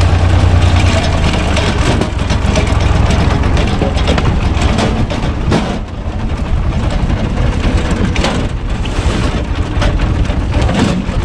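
UTB Universal 445 tractor's diesel engine running steadily, driving a PTO screw cone log splitter through its shaft. Sharp cracks and knocks come through the engine sound several times as the spinning cone bores into and splits the log.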